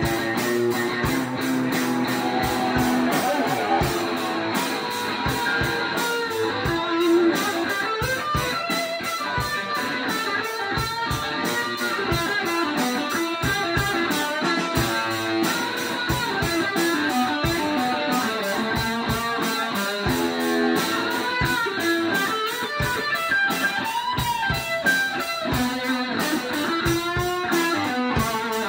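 Electric guitar and drum kit playing live together: guitar lines over a steady drum beat.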